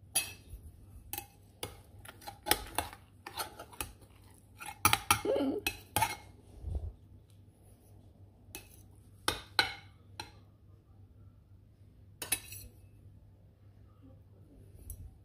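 A metal knife clinking and scraping against a glass baking dish while a baked broccoli casserole is cut, in irregular clusters of sharp clinks with quieter gaps between.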